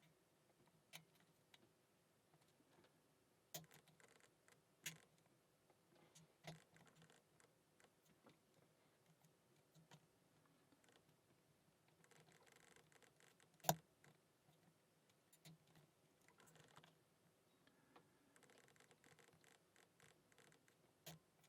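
Near silence broken by scattered small clicks and taps from a padlock and lock picks being handled, with one sharper click about two-thirds of the way through.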